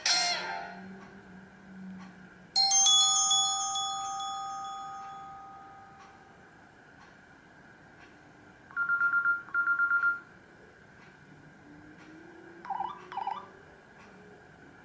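Short electronic alert tones from a Nokia C3-01 mobile phone, played one after another. A bell-like chime rings out and fades over a few seconds, then a quick run of about four beeps, then two short warbling chirps near the end.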